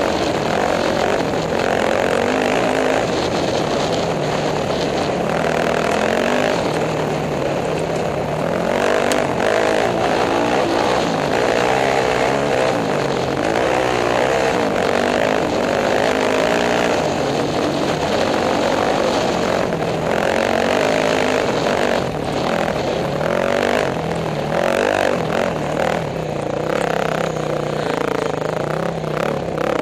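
Off-road racing motorcycle engine at full race pace, its revs rising and falling over and over as the throttle is worked across rough desert ground.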